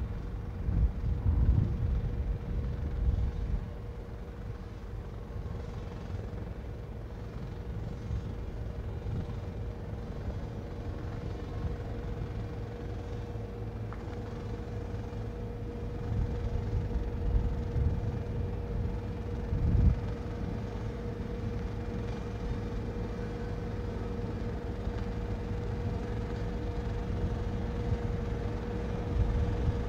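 Tractor engine running steadily: a low rumble with a constant whine over it, uneven low buffeting like wind on the microphone, and a brief thump about two-thirds of the way through.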